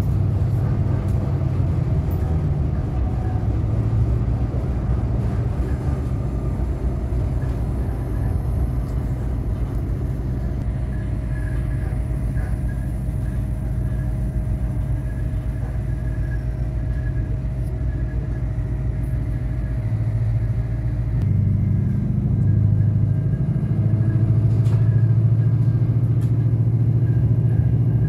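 Cabin noise of an Adelaide Metro 3000-class diesel railcar under way: a steady low drone of engine and wheels on the rails, with a faint steady whine over it. About three-quarters of the way through the drone steps up and grows louder.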